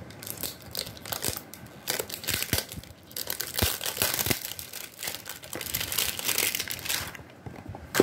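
Plastic wrapping crinkling and rustling in irregular bursts as it is pulled off a water tank overflow alarm, easing off near the end, followed by one sharp click.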